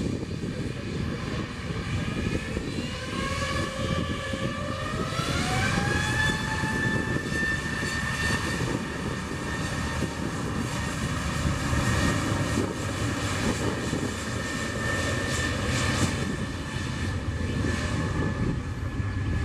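Airbus A320neo's Pratt & Whitney PW1100G geared turbofans spooling up to takeoff thrust for the takeoff roll. A whine rises in pitch over a few seconds, from about two seconds in, then holds steady over a loud rumble.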